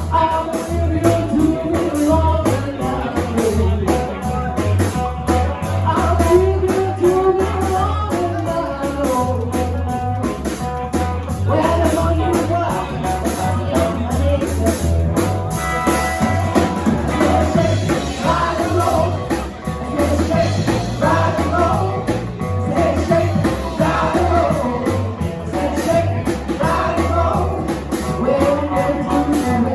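Live rock and roll band playing, with singing over a steady drum and bass beat.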